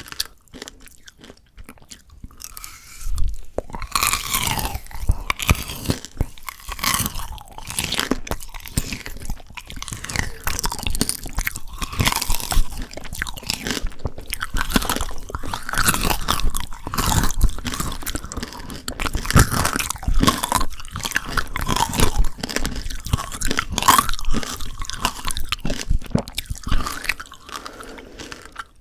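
Close-miked biting and chewing of frozen Shine Muscat grape tanghulu: the hard sugar-candy shell cracks and crunches, and the frozen grapes are chewed. The crunching starts about three seconds in and goes on in dense, irregular crunches until just before the end.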